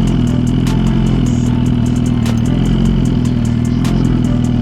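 2023 Suzuki GSX-R1000's inline-four engine running at a steady, unchanging speed. Sharp clicks fall about every second and a half.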